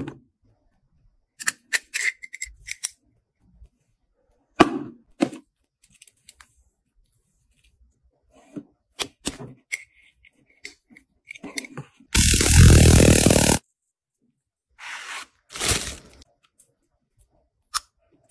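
Metal belt buckles, a snap-fastened leather strap and a folding metal tool being handled: scattered sharp clicks, snaps and light rattles, with a loud rasping rip lasting over a second about twelve seconds in and a shorter one a few seconds later.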